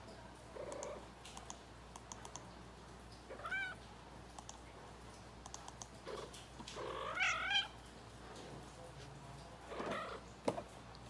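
Calico cat meowing three times, the longest and loudest call about seven seconds in.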